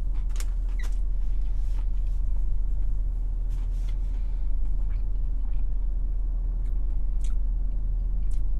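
Steady low hum of a car idling, heard inside the cabin, with a few short wet clicks and smacks from chewing a mouthful of fried chicken sandwich.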